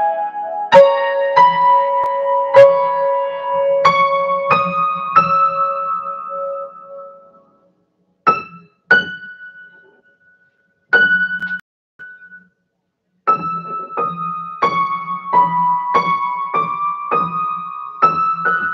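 Keyboard playing with a piano sound: a slow melody of single struck notes, about one every two-thirds of a second, stepping upward in pitch. About seven seconds in it thins to a few isolated notes with silences between them, then a steady run of notes resumes about thirteen seconds in.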